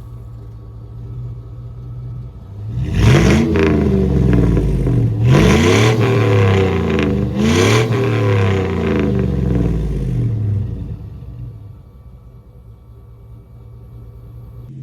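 1999 Chevrolet Silverado's 5.3L LM7 V8 through a Cherry Bomb muffler with gutted catalytic converters, idling, then revved three times in a row, each rev rising and falling in pitch, before settling back to a steady idle.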